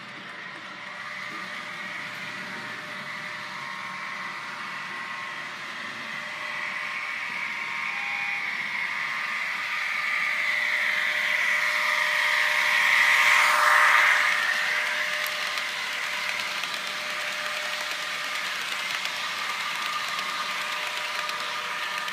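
HO-scale model electric trains running on track: a steady motor whine with wheel noise, growing louder to a peak about 13 to 14 seconds in as a model BR103 locomotive passes close by, then easing off.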